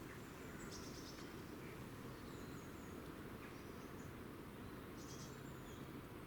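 Small birds giving short, high chirps a few times, about a second in, midway and near the end, over a steady outdoor background hiss.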